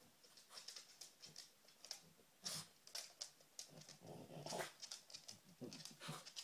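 French bulldog sniffing and snuffling in many quick, short sniffs, with a longer, deeper snort about four seconds in.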